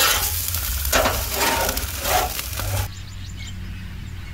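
Meat sizzling over braai coals, a steady hiss that cuts off suddenly about three seconds in, leaving only a quieter low hum.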